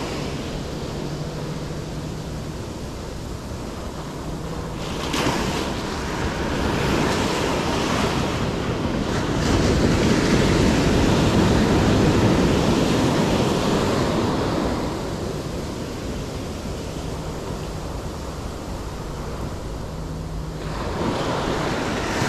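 Small ocean waves breaking and washing up a sandy beach, swelling loudest about halfway through, with wind buffeting the microphone.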